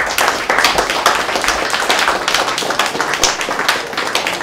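Audience applauding: many hands clapping together in a dense, loud patter.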